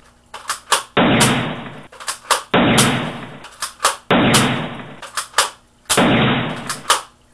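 Gunshot sound effect played four times, about every second and a half, each shot preceded by a few sharp clicks and fading out over about a second.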